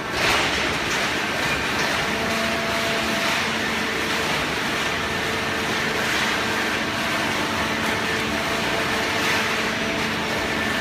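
Hydraulic paper baling press running: a steady motor and pump hum with a dense mechanical rush over it, which steps up in level right at the start and then holds steady.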